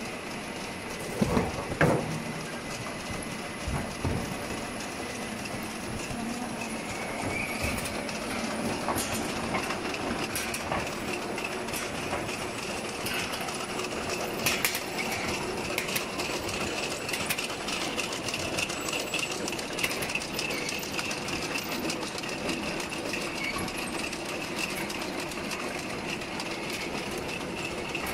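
Fruit washing and weight-grading production line running: steady machine noise with constant light clattering and ticking from the conveyors and grading cups. A few louder knocks come about one to two seconds in and again around four seconds.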